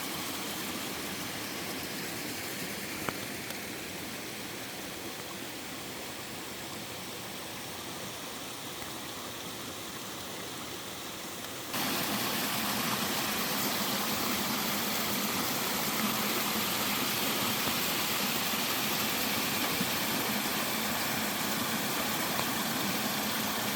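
Mountain stream and waterfall rushing steadily. About twelve seconds in, the sound jumps abruptly to a louder, hissier rush.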